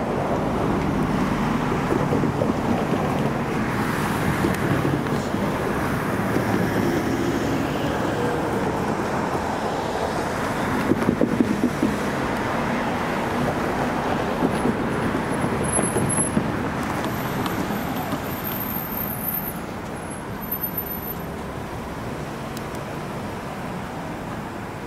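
Road traffic going by, a steady wash of car engines and tyre noise that eases off somewhat near the end.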